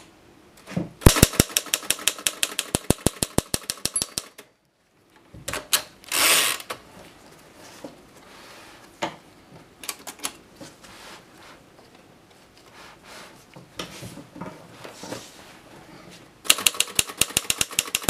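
A 1937 Torpedo 15 portable typewriter being typed on: fast runs of sharp key-and-typebar clacks, about six a second, with a short pause, a brief sliding noise and slower scattered clicks in the middle, then fast typing again near the end.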